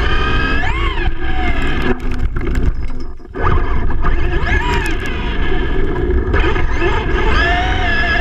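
Electric motor of a Traxxas E-Revo RC truck whining, its pitch rising and falling with the throttle, over a steady rumble of the tyres on rough pavement and wind on the onboard camera. The sound drops away briefly about three seconds in.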